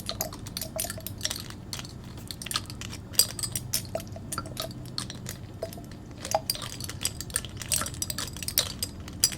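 Glass dropper clinking and tapping against a glass bottle in many quick, irregular taps.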